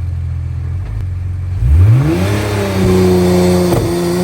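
Nissan R35 GT-R's twin-turbo V6 running steadily, then launching hard about a second and a half in: the revs climb quickly and hold, with a brief dip at a gearshift near the end.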